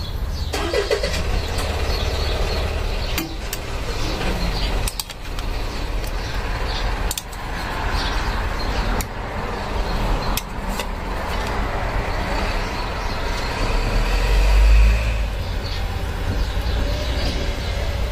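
Steady low outdoor rumble that swells briefly about fourteen seconds in, with scattered light clinks and clicks of chopsticks, a metal strainer and a ladle against serving bowls and a saucepan as food is plated.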